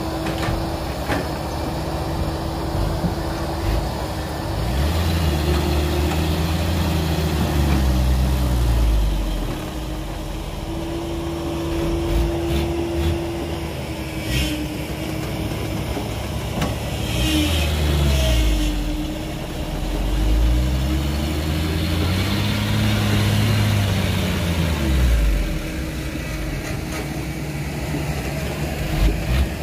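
Heavy-equipment diesel engine running, revving up and dropping back three times over a steady low hum.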